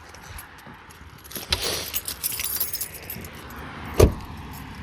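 Metallic jingling and rattling, like keys, for a couple of seconds, then one sharp loud thump near the end.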